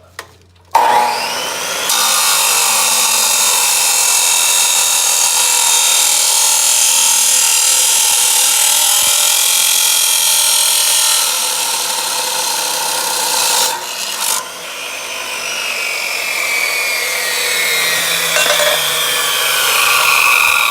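Chop saw starting up and cutting through a length of square tubing, a loud steady whine and grind lasting about 13 seconds. After a brief break, the saw's blade winds down with a falling whine.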